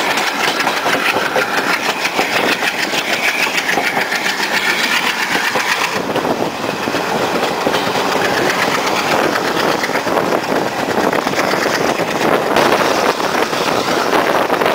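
Passenger train climbing a steep ghat gradient, heard from an open coach door: the diesel locomotives at the head of the train working hard under load, mixed with the steady running noise of the coaches on the rails. The sound is loud and continuous and changes abruptly about six seconds in.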